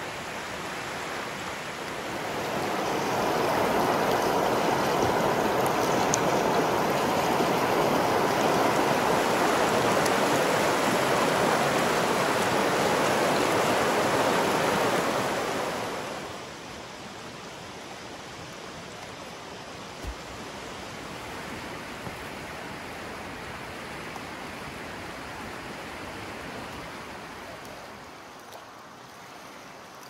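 Creek water flowing in a steady rush. It is louder for the first half, then drops suddenly to a softer, steady flow.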